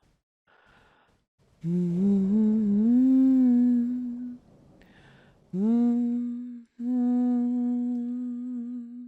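A woman humming a slow lullaby in three phrases with short pauses for breath. The last phrase is a long held note that fades away near the end.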